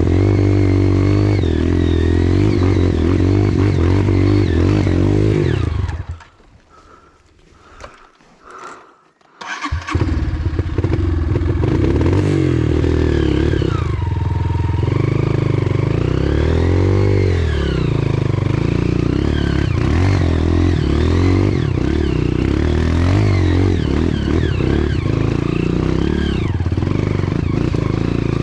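Motorcycle engine running and revving, its pitch rising and falling as the throttle opens and closes. It drops away for about four seconds some six seconds in, then comes back just as loud.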